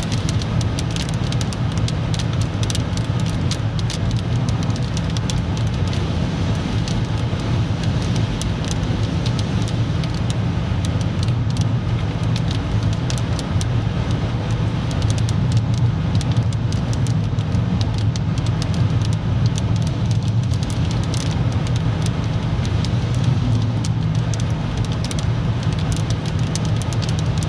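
Steady road and engine drone heard inside a car's cabin while cruising on a motorway, with scattered light ticks over it.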